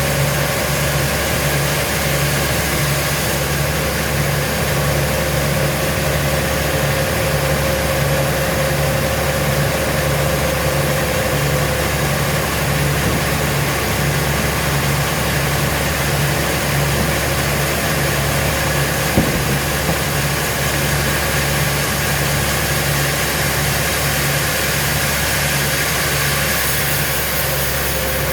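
An engine running steadily at idle with an even throb. A single sharp knock comes about two-thirds of the way through.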